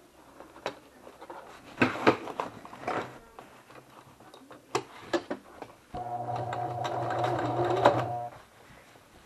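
Sewing machine running steadily for about two seconds, then stopping, after some clicking and handling knocks a couple of seconds earlier.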